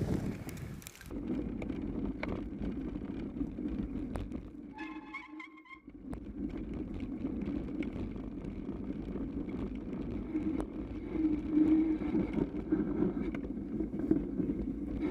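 Radon ZR Race 6.0 mountain bike ridden over snow, heard from a camera on the front fork: a steady rumble of the knobby front tyre rolling through snow mixed with wind on the microphone, with frequent small knocks and rattles from the bike. A brief high squeal comes about five seconds in.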